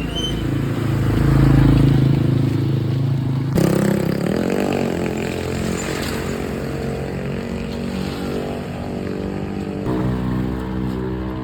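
Motorcycle engines and road traffic running, with one engine changing pitch as it revs. The sound changes abruptly twice, about three and a half seconds in and near the end.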